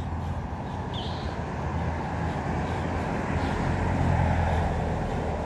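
Steady road-traffic rumble that swells around four seconds in as a vehicle passes, with a short high chirp about a second in.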